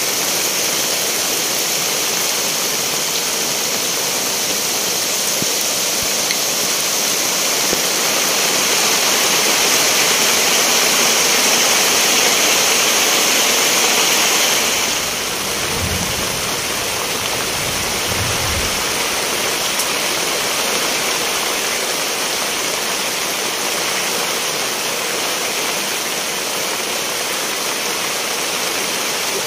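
Heavy rain falling steadily, a dense hiss that eases slightly about halfway through, with two low thuds a couple of seconds later.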